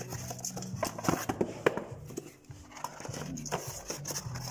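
Irregular light clicks and knocks, several a second, over a steady low hum.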